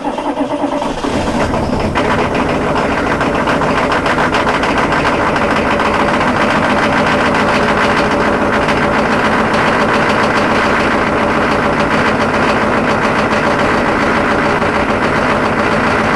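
A 1997 Chevrolet K2500 HD's 6.5-liter Detroit turbo diesel V8 cold-starting at 30 degrees on glow plugs, with no block heater. It catches right at the start, settles over the first couple of seconds, then runs steadily with a rapid, even clatter.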